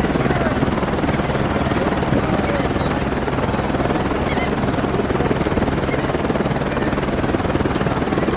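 Steady, ragged low rumble of wind buffeting the camera microphone, with faint distant shouts from the field.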